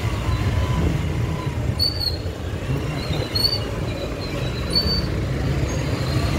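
Motorcycle engine running under way, a low wavering rumble with wind and road noise. Short high chirps come about every one and a half seconds.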